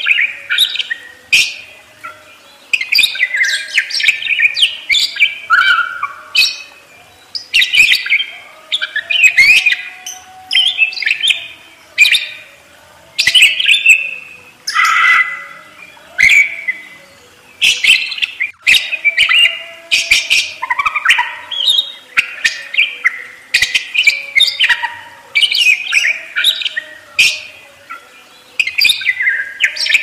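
Budgerigars chattering and warbling: a fast, continuous run of short chirps, squeaks and clicks in clusters with brief gaps.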